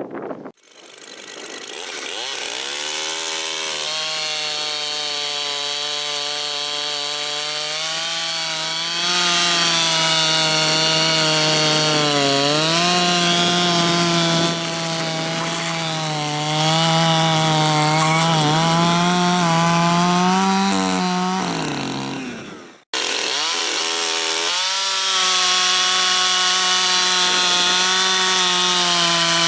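Chainsaw with a freshly sharpened Husqvarna X-Cut chain starting up and running at high revs through a log, its pitch sagging and recovering under the load of the cut. It breaks off about two-thirds through and then runs on at full speed.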